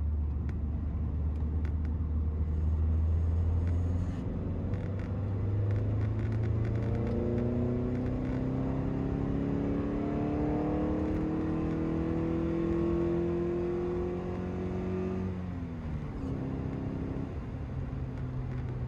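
Toyota MR-S's 1.8-litre 1ZZ-FE inline-four running steadily, then pulling with its note rising slowly for about nine seconds. The note drops quickly and the engine runs steady again until the sound cuts off near the end.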